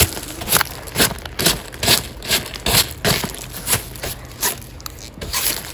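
Dry leaves being swept across a trampoline's woven mat with a brush: a dozen or so quick scratchy strokes, about two a second, each with a dry rustle and crackle of leaves.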